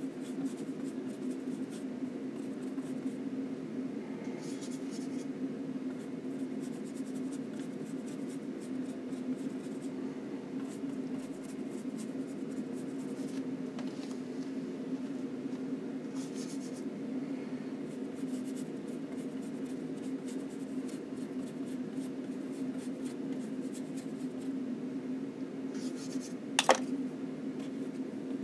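A flat paintbrush scratching and rubbing oil paint onto a linen panel in short, repeated strokes, over a steady low hum. A single sharp click comes near the end.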